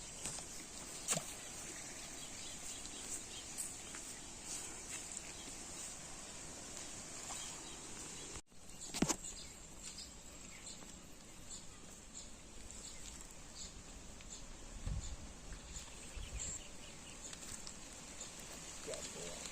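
Outdoor ambience: a steady high hiss with scattered faint ticks and chirps. There are sharp knocks about a second in and about nine seconds in, and a low thump near fifteen seconds.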